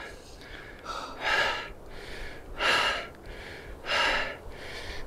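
A hiker breathing hard, a heavy breath about every second and a quarter, out of breath from a steep uphill climb.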